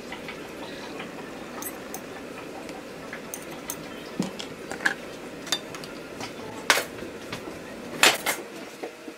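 A metal spoon clinking and scraping against a pot and a ceramic dinner plate as food is spooned onto the plate: scattered light clinks, with a few louder knocks near the end.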